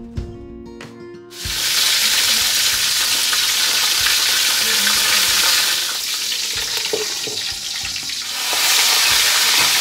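Tuna jaw frying in oil in an aluminium wok: loud sizzling starts about a second and a half in as the lid comes off, eases for a couple of seconds with a short clink, then swells again near the end.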